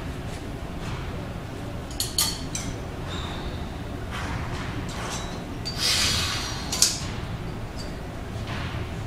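Iron weight plates clinking on a loaded barbell as it shifts during a good morning lift: a few sharp metallic clinks over gym room noise, one about two seconds in and the sharpest near the end, just after a short rush of noise.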